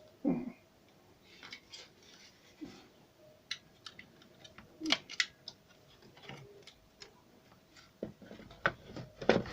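Irregular light clicks and taps from small parts being handled, with a cluster of sharper clicks about five seconds in and a few heavier knocks near the end.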